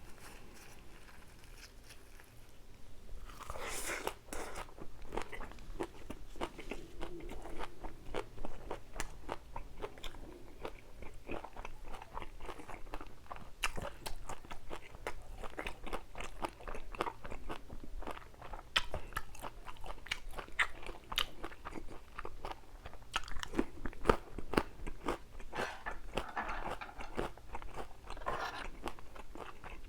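A person chewing and biting food close to the microphone, with many quick, irregular crunches throughout and a louder bite about four seconds in.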